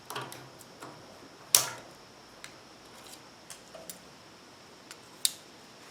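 Scattered light metallic clicks and clinks of bolts and hand tools being handled during engine teardown, with a sharper clink about one and a half seconds in and another near the end.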